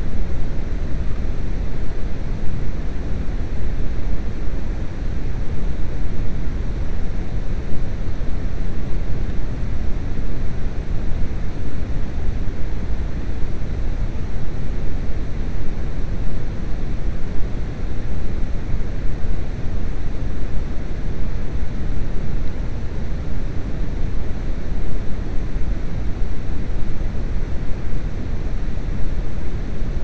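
Steady, loud low rumbling noise with no distinct clicks or knocks.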